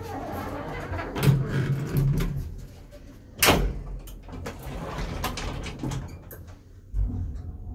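An old elevator's hinged landing door is handled with a few clicks and knocks, then swings shut with a loud bang about three and a half seconds in. The car's sliding inner doors close after it. Near the end a thump and a low rumble mark the car starting to move.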